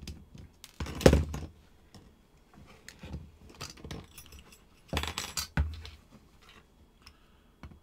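Small metal clinks and clicks of a tiny screwdriver and screws being handled while a screw is backed out of a brass powder flask. The loudest knock comes about a second in, with another cluster about five seconds in.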